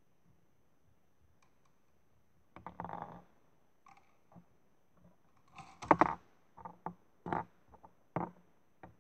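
Hard plastic clicking and rattling as a toy wheelie bin is hooked onto and tipped by the bin lifter of a Bruder toy garbage truck. A short rattle comes about two and a half seconds in, the loudest clatter about six seconds in, then several single sharp clicks.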